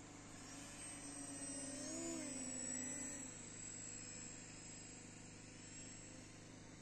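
Faint whine of an electric RC model plane's motor and propeller, louder for the first three seconds, with its pitch rising and falling again about two seconds in as the plane flies by.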